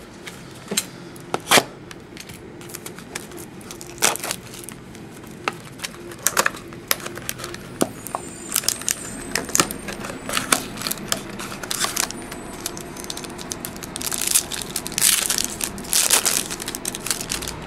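Baseball card packs being torn open and the cards handled: wrappers crinkling and tearing, with many sharp clicks and snaps throughout and denser crinkling near the end.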